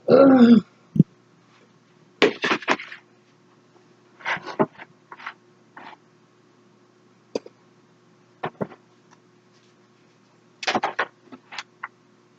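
Clicks, taps and rustles of small items being picked up and set down, in short bursts a second or two apart. A brief murmur from a woman's voice comes right at the start.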